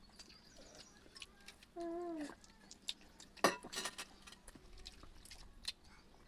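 Eating sounds: scattered small clicks and smacks of chewing, with a loud cluster of clicks about three and a half seconds in. A brief wavering hum comes about two seconds in.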